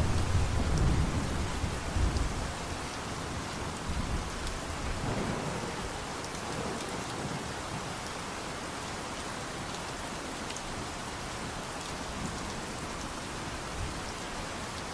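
Steady rain falling, with a low thunder rumble that fades out over the first two or three seconds, leaving an even hiss of rain.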